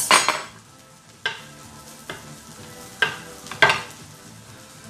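Several short rustling and knocking handling noises as hands work with food and paper on a wooden cutting board. The loudest comes right at the start, and a few more follow about a second apart.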